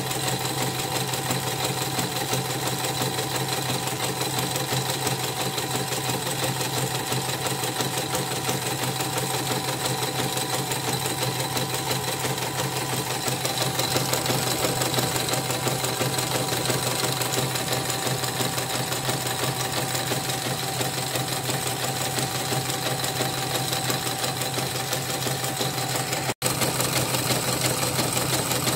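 CNY portable embroidery machine stitching a design with its cover off, on a test run after servicing: its needle and freshly sanded rotary hook make a fast, steady stitching rhythm.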